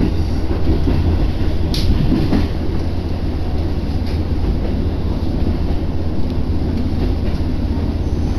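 Diesel railcar heard from inside the cabin while running along the line: a steady low drone of engine and running noise with wheel-on-rail rumble. A few sharp clicks from the track come through, about two and four seconds in.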